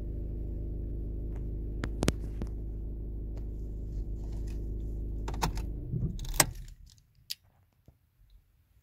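Skoda Superb 2.0 TDI four-cylinder diesel idling steadily, with a few sharp clicks. About six and a half seconds in, after the loudest click, the engine is switched off and runs down to a stop.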